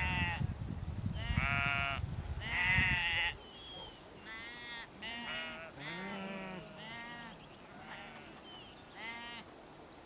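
A flock of sheep bleating, many short calls from different animals one after another and sometimes overlapping. For the first three seconds a low rumbling noise sits under the calls and then cuts off suddenly.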